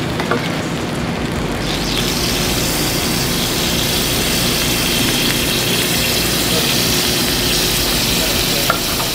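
Meat sizzling on a flat-top griddle over a steady kitchen hum; the hiss grows louder about two seconds in and holds. A metal spoon clinks lightly against the foil trays a couple of times.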